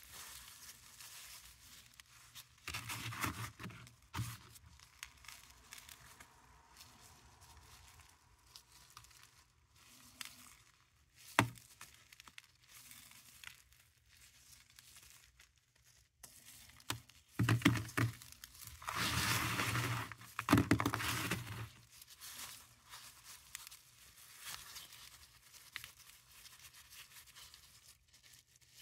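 Paradichlorobenzene mothballs being crushed to powder in a gloved fist: grainy crunching and crumbling in several bursts, with one sharp crack partway through. The longest and loudest stretch of crushing comes in the second half.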